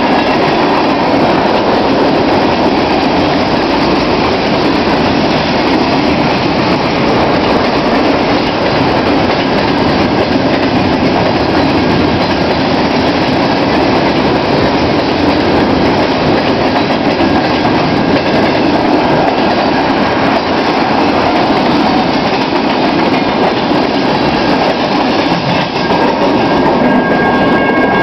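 Freight cars of a long BNSF train rolling past close by, with a steady rumble and rattle of steel wheels on the rails. A few steady high tones come in near the end.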